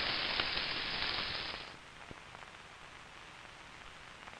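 Fish sizzling in a pan of hot oil, a steady crackling sizzle that cuts off sharply about one and a half seconds in, leaving only faint hiss.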